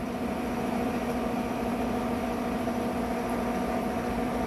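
Steady mechanical hum, one fixed low pitch with fainter overtones, over an even rushing hiss; it does not change.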